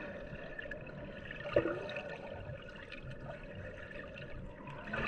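Water sloshing and lapping around people swimming, a steady watery wash with a few small splashes.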